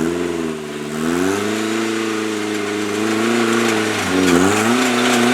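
Off-road 4x4's engine revving up and held at high revs, dipping briefly about four seconds in, then revving again. The rear diff isn't turning, so the rear wheels aren't driving.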